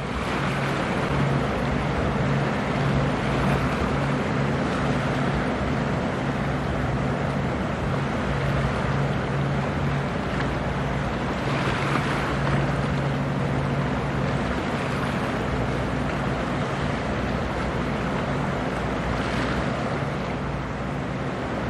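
A 21 m coast guard survey boat under way: a steady engine hum beneath a constant wash of water and wind noise, with two brief swells of hiss about halfway through and near the end.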